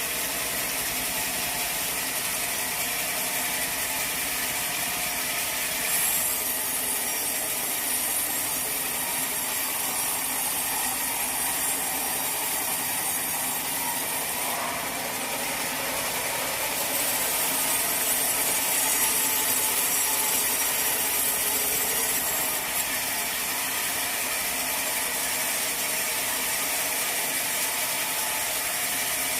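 Sawmill saw running and cutting through a teak log: a steady mechanical noise that changes in level and tone a few times as the cut goes on.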